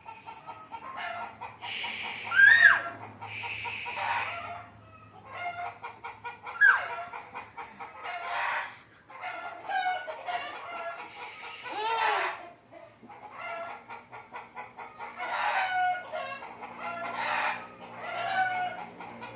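Chickens clucking, with short, high, gliding calls scattered throughout.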